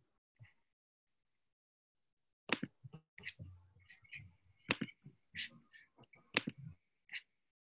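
A string of sharp clicks and taps at a computer, three louder ones about two seconds apart with softer ones in between.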